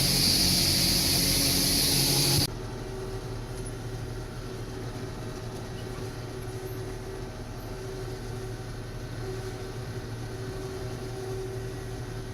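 John Deere 6620 combine running while harvesting soybeans: a loud machine noise with a strong hiss, which drops suddenly about two and a half seconds in to a quieter, steady hum of engine and threshing machinery.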